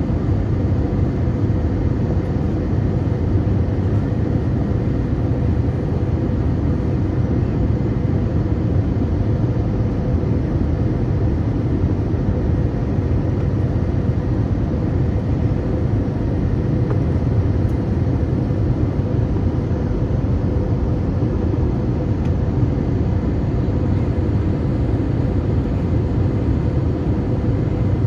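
Steady cabin noise of an Airbus A321 in flight, a low, even rush of engines and airflow with a faint steady hum, holding level throughout.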